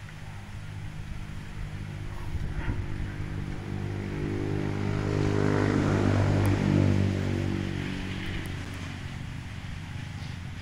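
An engine passing by, its steady hum growing louder to a peak about six seconds in and then fading away.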